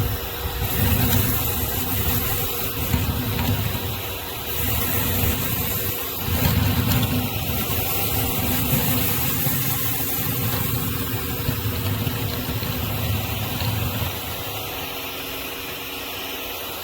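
Pressure washer running steadily with a 16-inch surface cleaner spraying water, a constant hum under a spray hiss, and a low rumble that comes and goes.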